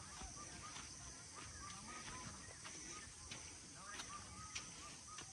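Faint forest ambience: scattered short bird chirps, footsteps on a dirt path, and a steady high-pitched hiss.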